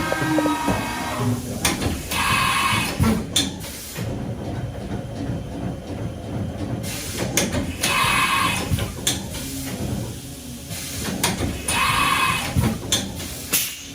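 Haas VM-6 CNC machining center running through a machine cycle: a falling whine as the spindle winds down in the first second, then three hisses of compressed air about five seconds apart, among sharp clicks and clunks of moving parts.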